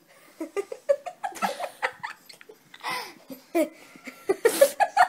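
Laughter in a run of short giggling bursts, with a breathy gasp near the end.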